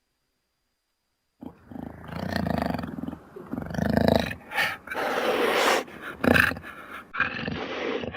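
Jaguar calling: a run of deep growling calls, one after another in short bursts, starting suddenly after about a second and a half of silence.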